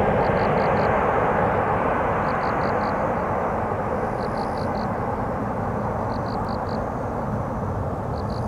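Jet engine noise of a twin-engined Airbus A330-200 airliner on final approach: a steady rushing sound that slowly fades as the plane draws away toward the runway.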